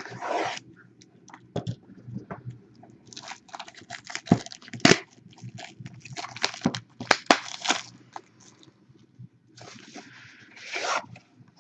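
Plastic shrink-wrap crinkling and tearing, with cardboard trading-card boxes being handled and opened: irregular rustling bursts broken by sharp clicks and knocks.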